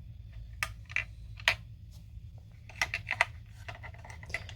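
Irregular sharp clicks and taps of small hard plastic parts being handled: the toy bulldozer's battery pack and its connector in the open battery compartment. About seven clicks in all, three of them close together about three seconds in, over a low steady hum.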